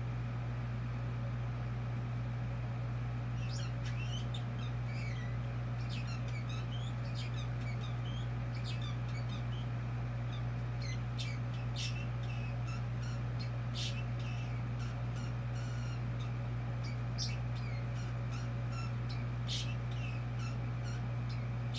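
Pet parrot chattering to itself: a run of soft clicks, short chirps and warbles, with several sharp high whistles in the second half. A steady low hum sits underneath.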